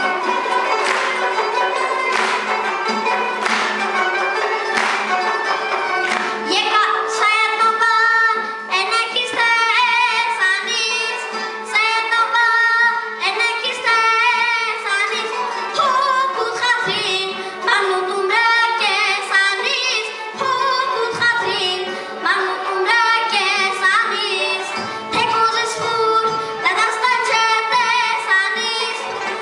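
A traditional Armenian ensemble of qanun, long-necked lute and frame drum plays; about six seconds in, an eight-year-old boy starts singing an ornamented folk melody in a high child's voice over the plucked-string accompaniment.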